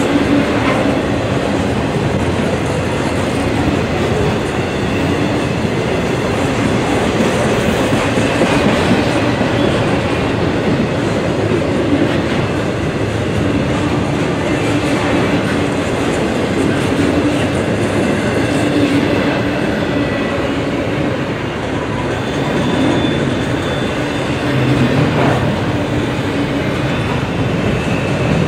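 Intermodal freight train passing close by: steel wheels of the well cars, loaded with double-stacked containers and trailers, rolling steadily over the rails, a loud, even rumble with faint ringing tones above it.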